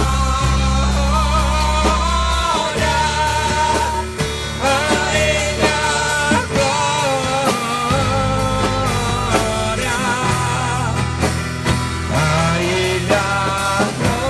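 Rock-style Christian worship music: a gliding melodic lead over electric guitar, bass and drums.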